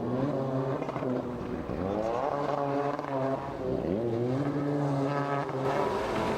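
Racing jet ski engine revving up and down repeatedly, its pitch rising sharply on the throttle several times, as the craft is worked through the slalom turns.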